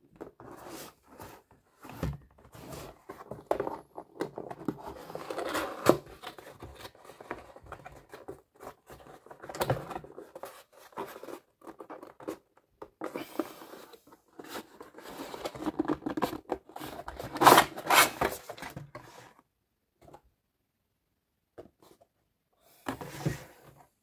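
Cardboard toy box being handled and opened by hand: irregular scraping and rustling of cardboard and plastic packaging with sharp knocks, loudest a little past the middle, thinning out to a few soft knocks near the end.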